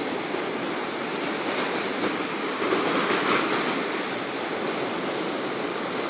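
Mediterranean surf: small waves breaking and washing up a sandy beach, a steady rush of water that swells a little about three seconds in.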